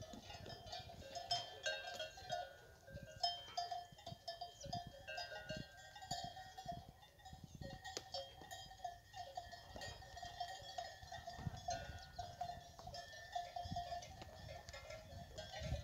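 Cattle bells (cencerros) on the cows' collars clanking irregularly and continuously as the cows and calves shift about.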